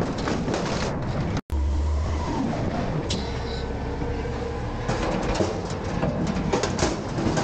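Front-loader garbage truck's diesel engine and hydraulics working as the forks set an emptied dumpster back down. A brief cut-out comes about a second and a half in. Clanks and knocks follow, mostly between five and seven seconds in, as the steel forks and dumpster part.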